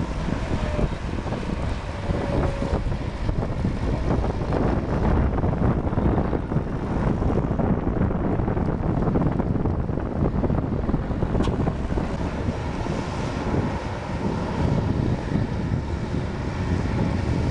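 Engine of a wheeled sugarcane grab loader running steadily as it works, with wind buffeting the microphone.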